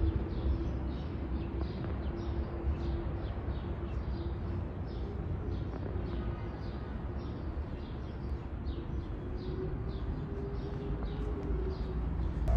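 Small bird chirping over and over, a few short chirps a second, over a steady low hum and rumble.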